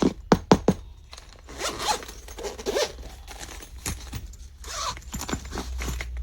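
A zipper being pulled along its track in rasping strokes, after a few sharp clicks in the first second.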